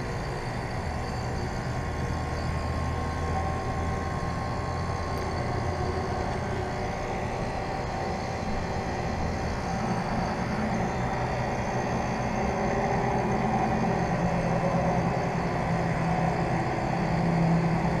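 Lennox Merit Series 3-ton heat pump outdoor unit in its defrost cycle: the compressor runs with a steady hum while the condenser fan stands stopped. The low note of the hum shifts higher about halfway through.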